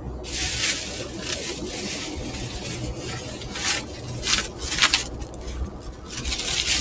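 A thin plastic shopping bag rustling and crinkling in short, irregular bursts as it is grabbed and handled.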